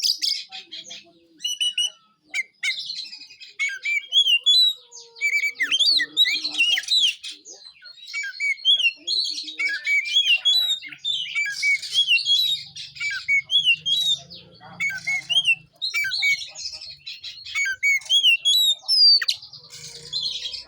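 Oriental magpie-robin (kacer) singing without pause: a rapid, varied stream of chirps, sweeping whistles and harsh squawky notes.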